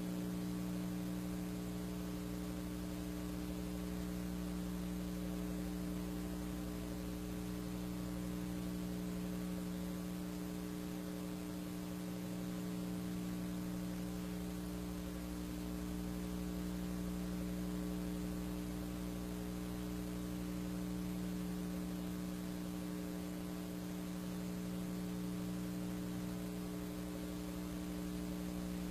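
Steady electrical mains hum with a buzzy edge and a faint hiss underneath, unchanging throughout.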